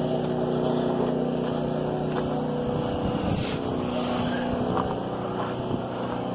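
An engine running steadily at a constant speed, with a few faint clicks.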